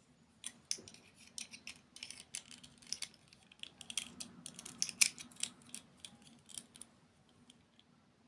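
Close-miked eating of a crunchy dessert: a fast run of sharp crunches and crackles that starts about half a second in and stops about a second and a half before the end.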